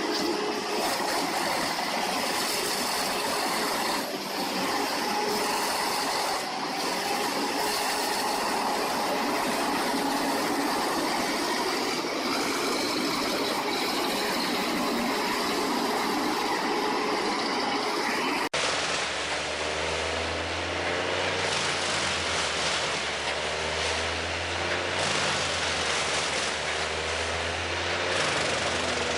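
Large wood-processing machine engine running steadily. About two-thirds of the way through the sound cuts abruptly to another recording of machinery with a deeper, heavier engine hum.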